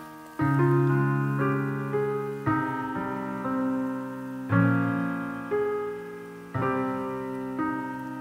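Background piano music: slow chords struck about every one to two seconds, each left to fade.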